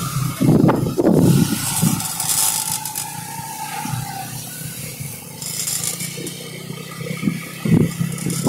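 A vehicle's engine running low and quiet as it rolls along slowly. There are scraping and rattling knocks in the first second or so, and again near the end.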